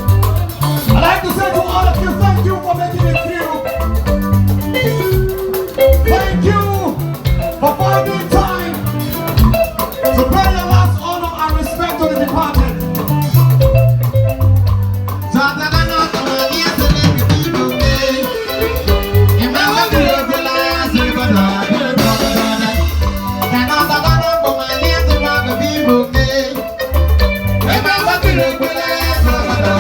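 Upbeat band music with a strong, steady bass beat, shaker percussion and shifting melodic lines.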